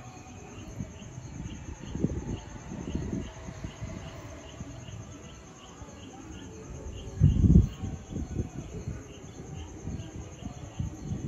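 Crickets trilling steadily at night, with a second, lower chirp repeating about twice a second. Irregular low rumbles and bumps come through, loudest about seven seconds in.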